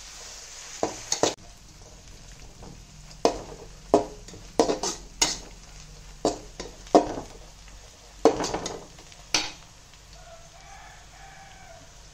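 Steel spatula scraping and knocking against a hammered aluminium kadai as sliced onions are stirred, about a dozen sharp, irregular strokes, over a faint steady sizzle of onions frying in oil. The strokes stop about two seconds before the end.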